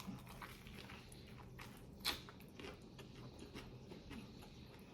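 Close-miked chewing of a grinder sandwich: soft wet mouth clicks, with one sharper click about two seconds in.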